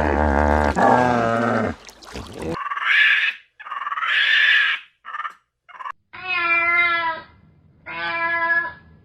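A series of farm animal calls: a long wavering call at the start, breathier calls, then two quavering calls near the end.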